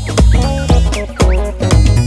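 Upbeat background music with a steady beat: a deep bass note about twice a second and short sliding notes on top.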